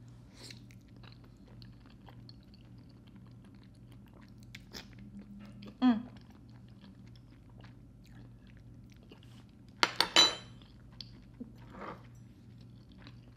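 Close-up mouth sounds of eating soft, creamy fettuccine noodles: quiet chewing and a short slurp about six seconds in. About ten seconds in, a metal fork clinks sharply twice.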